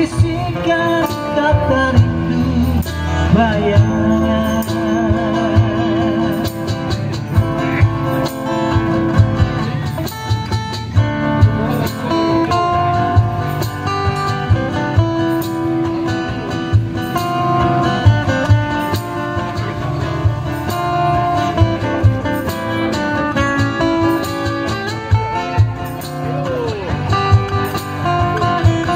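Live amplified acoustic band music: two acoustic guitars strummed and picked over a steady hand-drum beat, with a male voice singing with wavering vibrato in the first part.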